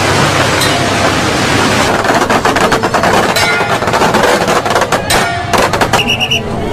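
Strings of firecrackers going off in a dense run of rapid sharp bangs, starting about two seconds in after a steady rushing noise. Near the end a high electronic beeping repeats over them.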